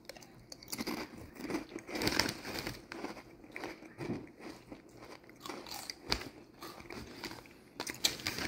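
Close-up crunching and chewing of a ridged potato chip (Ruffles All Dressed) in the mouth: a run of irregular crisp crunches, crackling more densely near the end.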